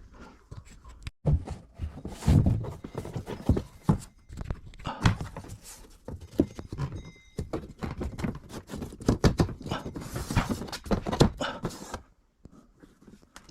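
Irregular knocking, thumping and clatter of wooden ceiling panels and tools being handled and fitted inside a bus. A short, high steady tone sounds about seven seconds in, and the knocking stops about a second and a half before the end.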